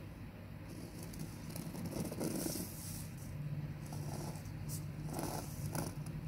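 Soft, irregular rustling and scraping of a stiff paper template being flipped and shifted on cotton fabric, then a pencil tracing along its edge, over a low steady hum.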